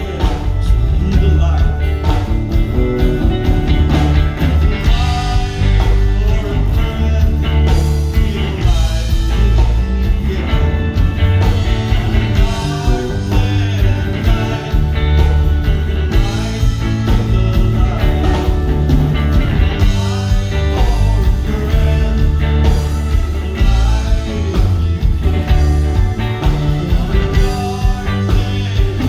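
Live band playing a rock song through the PA: bass, drums and guitar with a steady beat.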